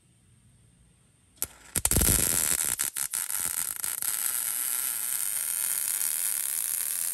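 MIG welder plug-welding a nut strip to a steel truck frame. After a near-silent second and a click, the arc strikes about two seconds in with a steady crackling sizzle, which stutters briefly a second later.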